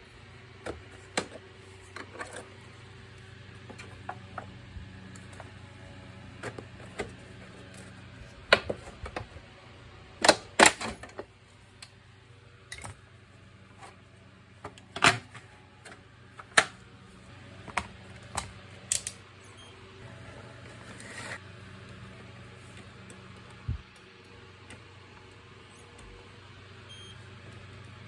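Plastic housing of an Electrolux JetMaxx vacuum cleaner being prised apart and handled: irregular sharp clicks, snaps and knocks of plastic parts, the loudest a quick cluster about ten seconds in.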